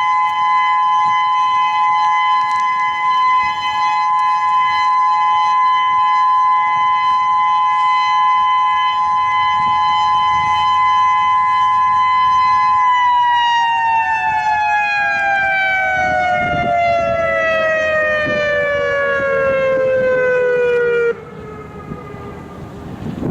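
Whelen 2016 electronic speaker-array warning siren sounding a steady two-tone alert, which about thirteen seconds in begins to slide down in pitch over several seconds, winding down at the end of the three-minute alert, then cuts off abruptly near the end, leaving faint wind noise.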